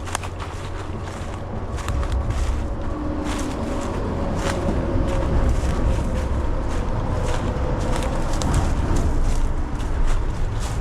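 Footsteps of a person walking over the ground, irregular steps over a steady low rumble on the microphone.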